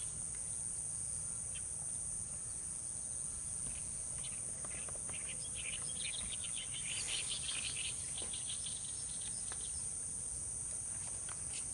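Steady high-pitched insect trilling, such as crickets, over a faint low rumble. A quick run of chirps comes from about six to eight seconds in.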